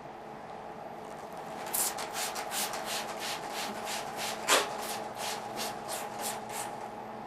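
About fifteen quick swishing or rubbing strokes, roughly three a second, with one louder stroke in the middle. A steady electrical hum runs underneath.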